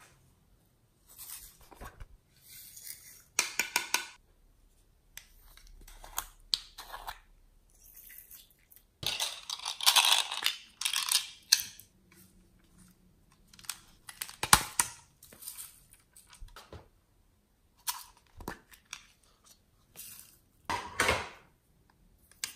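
Hands handling small plastic containers and toys over a tray of glitter-covered slime: a run of short rustles, scrapes and plastic clicks, busiest about halfway through, with one sharp click soon after.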